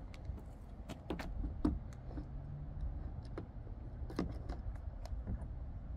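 A scatter of light clicks and taps as a handheld K2 meter and a phone are handled and set down on a plastic bin lid, in two clusters about a second in and around four seconds in, over a low steady rumble.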